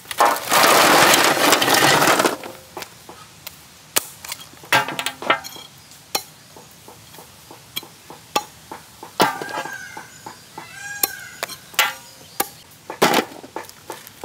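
Hard crab shells being cracked and broken with a cleaver on a wooden chopping block: scattered sharp cracks and knocks. It opens with a loud rush about two seconds long as something is tipped onto a large aluminium plate, and a chicken calls a few times around the middle.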